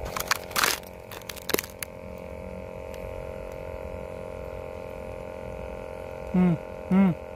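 Sharp clicks and knocks in the first two seconds as the telescopic fishing pole is handled, over a steady hum. Near the end come two short voiced sounds that rise and fall in pitch.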